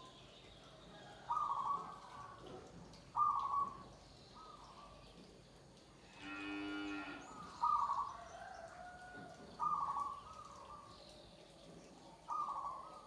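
Zebra doves (perkutut) cooing: five short phrases, each starting loud and trailing off, spaced about two seconds apart. About halfway through there is one steady, lower-pitched drawn-out call lasting about a second.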